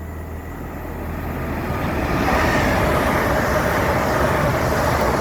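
LNER Class 800 Azuma train passing through the station, its rushing noise building over the first two seconds and then staying loud, with a steady whine over it.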